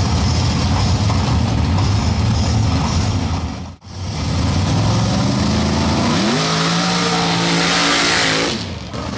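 Supercharged V8 engine of a mud race truck idling with a steady low rumble. After a sudden break about four seconds in, the engine is at full throttle, climbing in pitch as the truck accelerates, with a loud hiss building near the end.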